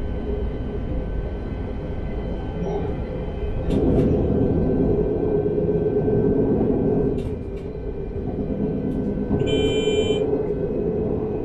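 Bombardier Talent 3 electric multiple unit running at speed on plain track: a steady rumble of wheels on rail that swells about four seconds in, with a few light clicks. A short electronic beep sounds about ten seconds in.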